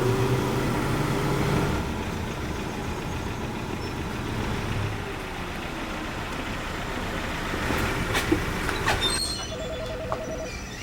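Steady rumble of a vehicle engine running, with a slowly shifting engine tone. A few sharp clicks come near the end, then a telephone starts ringing in the last second or so.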